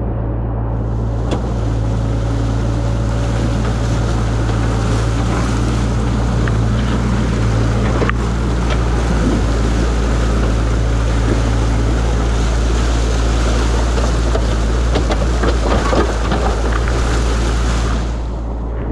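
Excavator's diesel engine running steadily, under a loud rushing of water pouring through the breached beaver dam. The rushing starts about a second in and cuts off near the end.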